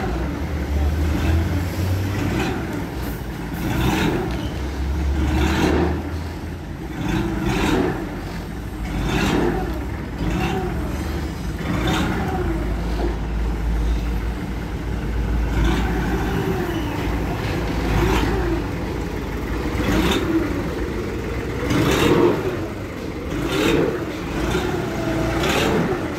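Large forklift's engine revving up and down over and over, about every two seconds, as the machine is put through a test.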